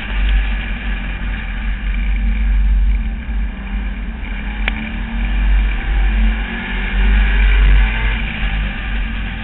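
Street stock race car's engine running hard at racing speed, heard from inside the car, its pitch rising and falling with the throttle over a heavy low rumble. A single sharp click about halfway through.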